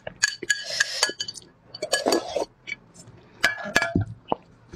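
Glass bowl clinking against the table as it is handled and set down: a string of sharp clinks with a brief glassy ring, the loudest about a second in and again near the end.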